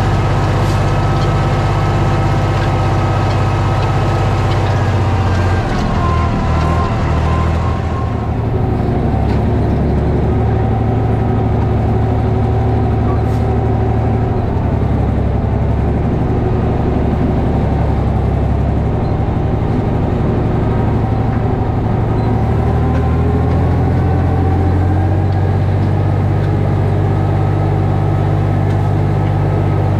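Tractor diesel engine running steadily at working revs, its pitch sagging briefly about six seconds in and again about two-thirds of the way through, then recovering. A higher hiss over it cuts off about eight seconds in.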